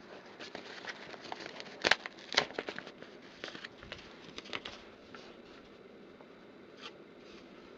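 Paper envelope being handled and opened: scattered light crackles and clicks, with two sharper clicks about two seconds in.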